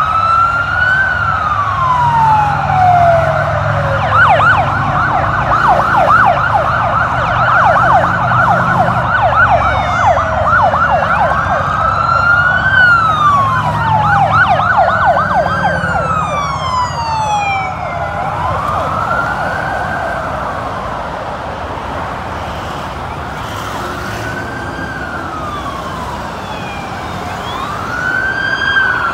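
Several escort sirens of a passing motorcade wailing, their slow rising and falling cycles overlapping. From about four to ten seconds in, one switches to a fast yelp. A low rumble of the passing vehicles' engines runs underneath. The sirens are loudest in the first half, ease off after the middle and swell again near the end.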